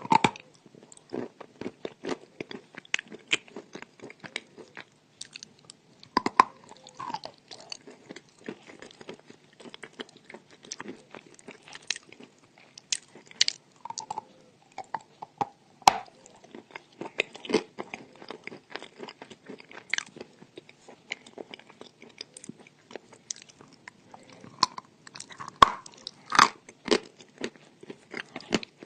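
Biting and chewing crunchy chalk: an irregular run of crisp crunches and crackles, with a few sharper, louder bites at the start and a little over halfway through.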